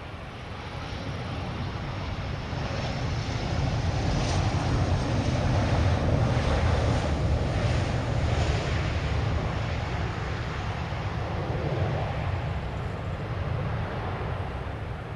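Embraer E190 twin-turbofan regional jet on its landing arrival: a steady jet rumble that swells to a peak about six seconds in, then slowly fades as the aircraft passes.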